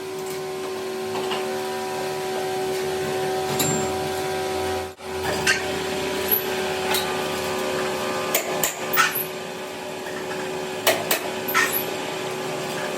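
Workshop sounds: a steady machine hum with irregular sharp metal knocks and taps, as of hand tools or a hammer striking metal, coming more often in the second half.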